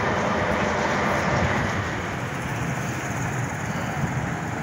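Steady rush of passing freeway traffic, a continuous even noise with no single vehicle standing out.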